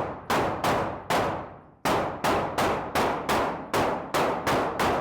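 Pistol fired in rapid strings, about three shots a second, with one short pause about a second in; each shot is a sharp crack that trails off quickly.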